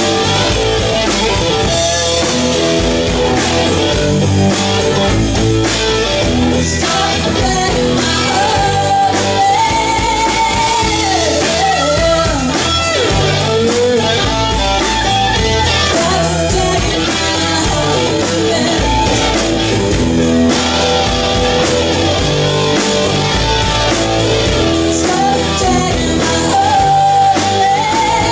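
Live rock band playing at a steady loud level: electric guitars over bass and drum kit, with a melodic lead line that bends in pitch in the middle and again near the end.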